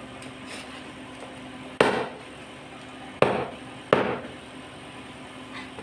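A steel cleaver chopping cooked pork on a plastic cutting board: three sharp chops, the last two close together.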